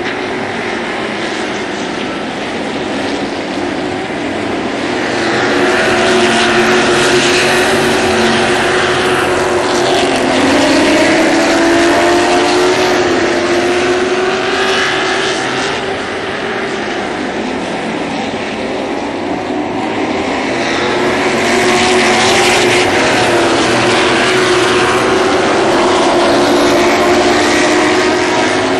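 A pack of Sportsman-class stock cars racing around a short oval track, several engines running at once at racing speed. The sound swells louder each time the field comes past and eases off between passes.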